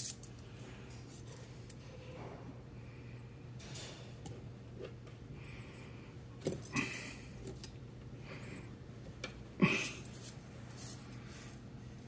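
Small metallic clicks and clinks from a hand roller tube bender and a steel brake hard line being handled and bent, with a few sharper clicks midway and about ten seconds in, over a steady low hum.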